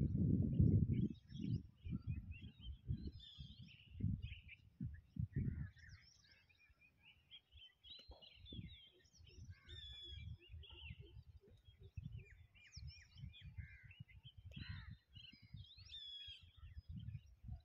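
Several birds chirping and calling, many short notes and sweeping calls overlapping. Wind buffets the microphone in gusts, loudest in the first second.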